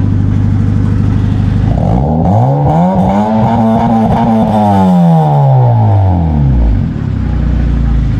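Black Honda Civic's loud modified exhaust at idle, then revved once: the engine note climbs from about two seconds in, holds high for a moment, and falls back to a steady idle near the end.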